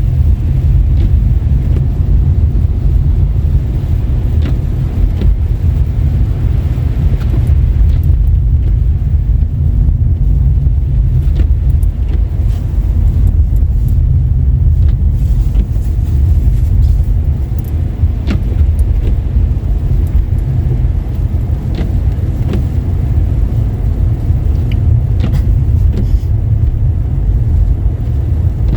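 A car driving on a wet, snowy road: a steady low rumble of tyres and engine, with a few faint ticks scattered through it.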